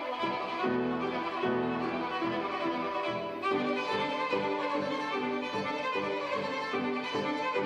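Solo violin with grand piano accompaniment playing a quick, busy classical passage of short, rapidly changing notes.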